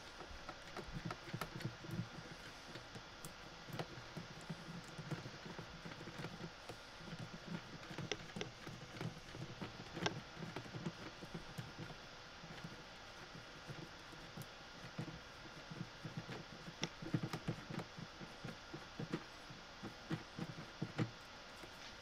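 Screwdriver turning the screw of a stainless steel worm-drive hose clamp to tighten it around a plastic pipe elbow: an irregular run of small clicks, scrapes and soft knocks, coming in spurts.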